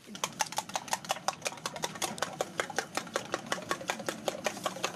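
A metal spoon beating eggs in a steel tumbler for an omelette, clinking fast and evenly at about six strokes a second.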